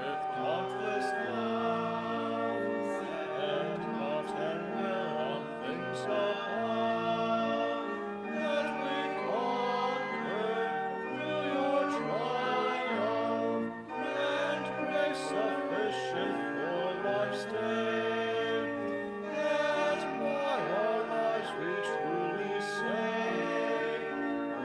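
Hymn singing: voices with vibrato over steadily held accompaniment chords that change every second or so.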